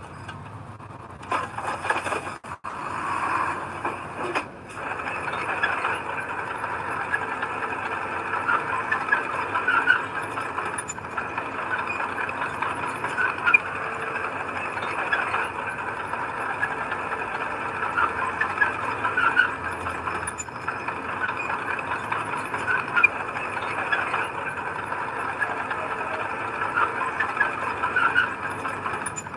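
A bulldozer working, with a continuous high squealing and grinding from the machine. There are brief breaks in the sound in the first few seconds.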